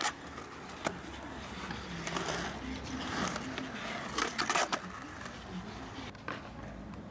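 Skateboard wheels rolling on a concrete skatepark, with sharp clacks of the board's tail and deck striking the ground during tricks, loudest a little past four seconds in.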